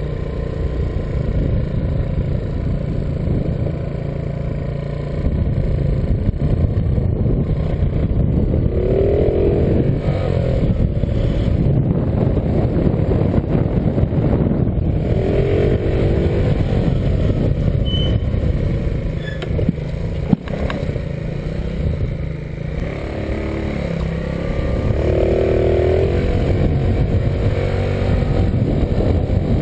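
Motor scooter running at riding speed: a steady low rumble, with three short higher-pitched whines along the way.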